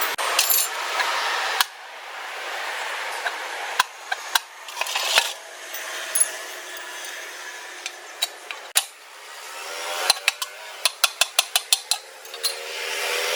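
Metal tools clinking and knocking over a steady machine hum, with a quick run of ticks near the end.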